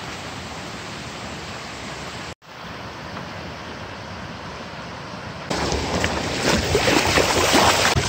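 Rushing mountain-stream water, a steady noise cut off short twice, growing louder and rougher from about five and a half seconds in.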